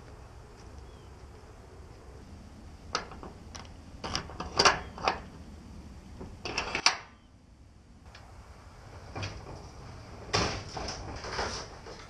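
Metal clicks and clanks of a disc padlock being unlocked and pulled from a steel slide-bolt hasp on a shed door, then a short rattle of the shed's metal roll-up door being pushed open about ten seconds in.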